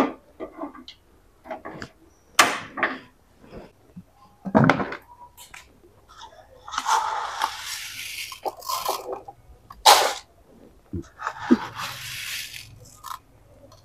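Kitchen handling sounds: scattered knocks and clinks of pots and utensils, with two stretches of hissing noise, one about six and a half seconds in lasting some two seconds and another about eleven seconds in.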